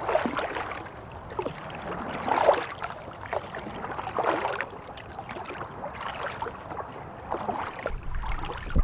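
Kayak paddle strokes splashing in the water, a swish about every two seconds over a steady lapping hiss, with a low rumble coming in near the end.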